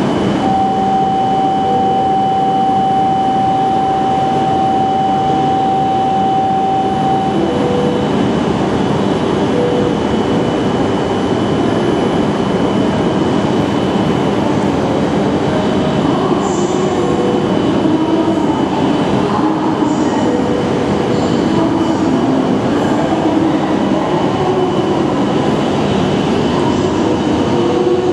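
Tohoku Shinkansen train moving along the station platform, a loud steady rumble and rush of running gear throughout. A held tone sounds for about the first seven seconds, and a wavering whine comes in during the second half.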